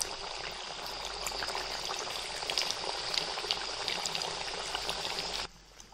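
Maddur vadas deep-frying in hot oil: a steady sizzle with fine crackles. It cuts off suddenly near the end.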